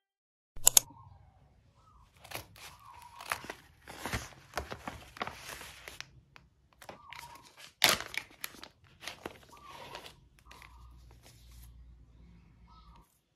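Clear plastic sleeves crinkling and rustling as printed cards and photocards are handled and slid out, in irregular crackles with a few sharper crunches, the loudest about eight seconds in.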